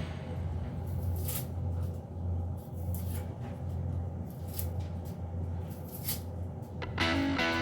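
Kitchen room sound: a steady low hum with a few light clicks and knocks from handling things.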